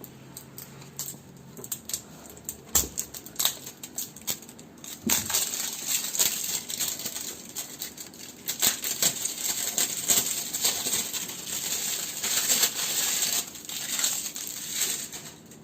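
Plastic wrapping of a new water filter cartridge being opened: a few clicks and knocks at first, then about ten seconds of dense crinkling and rustling of the plastic bag.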